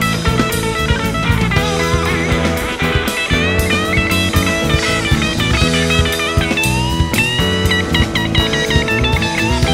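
Live rock band playing: a Rickenbacker electric guitar plays a lead line with string bends over bass and drum kit.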